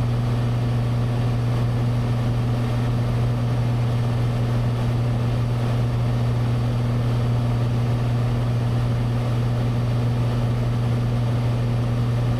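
Cessna 182's six-cylinder piston engine and propeller droning steadily in cruise flight, heard inside the cabin.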